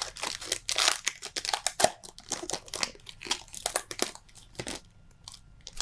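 Foil wrapper of a Pokémon booster pack crinkling and crackling as it is pulled open and handled, in dense irregular crackles that thin out after about four and a half seconds, leaving a few faint clicks.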